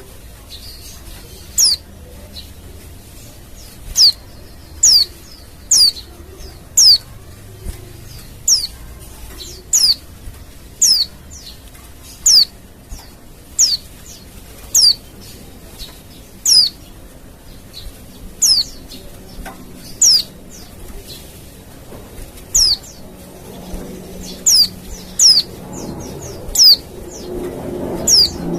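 White-eye (pleci) giving short, sharp, high calls that sweep downward in pitch, repeated about once a second.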